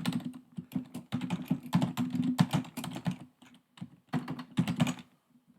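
Typing on a computer keyboard: a quick run of key clicks with a short pause partway through, stopping about five seconds in.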